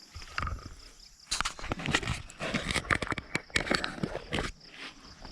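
Footsteps of a person walking over the ground outdoors: an irregular run of steps and rustling clicks for a few seconds, with insects chirring in the background.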